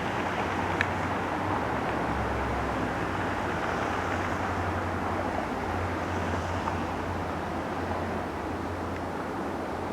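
Steady outdoor background noise: an even hiss over a low, constant hum, with no distinct event apart from one faint click about a second in.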